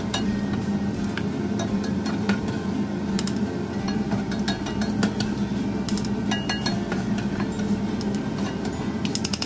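Slotted spatula scraping across a nonstick frying pan and knocking against a bowl as sautéed red onions are lifted out: a run of irregular sharp clinks and taps.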